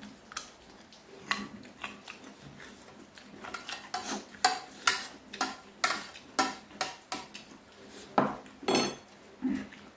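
Steel spoon clinking and scraping against a ceramic plate while the last of the gravy is gathered up: a run of sharp clinks about two a second, with a couple of louder knocks near the end.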